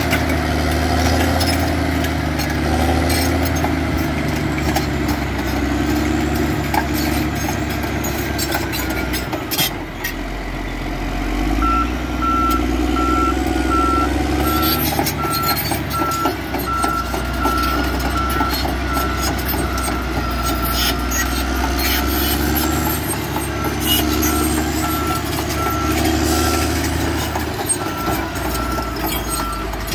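Cat D7R crawler bulldozer's diesel engine running steadily under load, with track clatter and knocking of rocks. From about a third of the way in, its reversing alarm beeps at a steady pace, the sign that the dozer is backing up.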